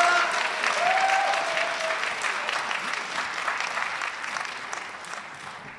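Concert audience applauding, the clapping tapering off steadily as it dies away.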